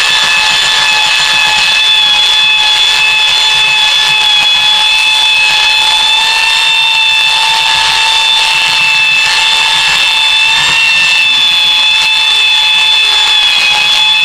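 Handheld belt sander running steadily with a high motor whine, its belt sanding the face of a glued-up poplar and alder strip cutting board.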